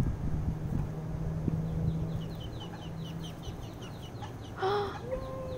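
Ducklings peeping: a quick run of short, high, falling peeps about halfway through, over a steady low hum, with a brief louder call near the end.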